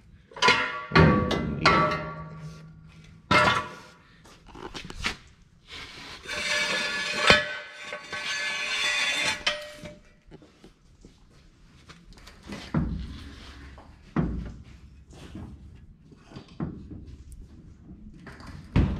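Metal clanks and knocks as a 350 engine hanging from an engine hoist is worked down into a car's chassis. The clanks are sharpest about one and three and a half seconds in, and a harsh, ringing noise lasts about four seconds in the middle.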